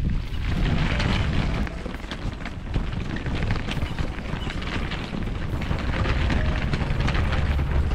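Wind buffeting the microphone in an uneven low rumble, with light rustling and clicks over it.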